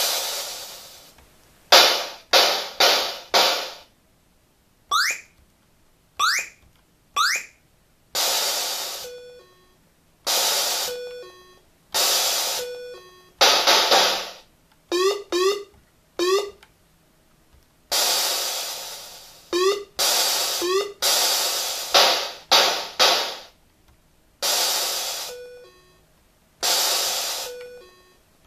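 AY-3-8910 sound chip playing a string of retro video-game sound effects through an amplifier. Bursts of noise start loud and fade away, some come in quick triplets, and others are single rising tone sweeps or rapid runs of rising chirps, each effect separated by a short gap.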